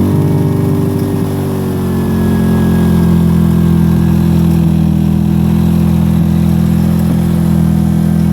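Powerhorse inverter generator's small four-stroke engine running just after a cold start, with the choke being worked. Its pitch wavers for the first second or so, then about two seconds in it picks up and settles into steady running.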